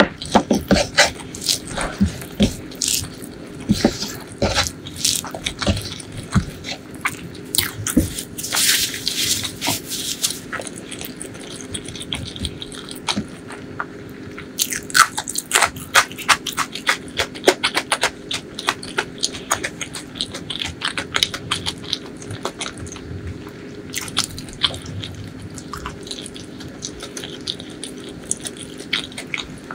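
Close-miked eating: wet chewing and crunchy bites of rice with butter chicken curry eaten by hand, made up of many quick, sharp mouth clicks. The clicking is busiest about a third of the way in and again around the middle.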